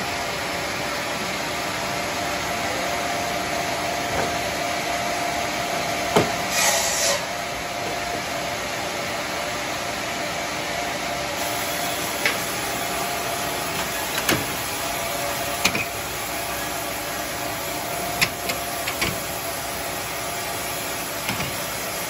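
Sawmill machinery running steadily without cutting, a constant whirring hum, with scattered knocks and clunks as a coconut-palm log is levered into place on the carriage.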